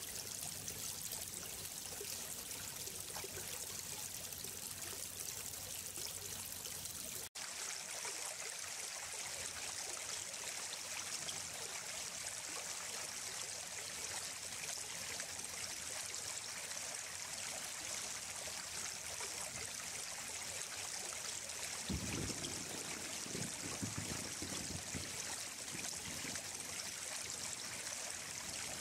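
Running water of a stream flowing steadily. About seven seconds in the sound drops out for an instant and comes back brighter, and a few low rumbles come through near the end.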